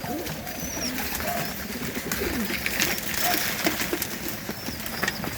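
Domestic pigeons cooing with low, short, gliding calls, amid scattered sharp clicks and taps.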